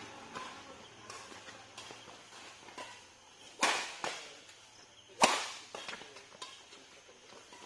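Badminton racket strings striking a shuttlecock during a doubles rally. Two hard hits about a second and a half apart are the loudest, with lighter taps and shuffling in between.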